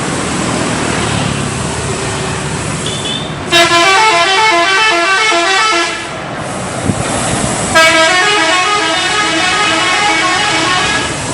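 Indonesian bus's multi-tone 'telolet' musical horn sounding twice, each time a quick tune of alternating notes lasting about two to three seconds, over street and engine noise.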